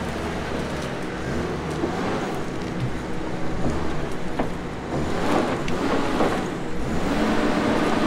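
Tigercat 620E grapple skidder's diesel engine working hard under load as it drags a grapple full of big logs. Cracking and scraping noises come in about five seconds in, and a steadier, higher engine tone takes over near the end.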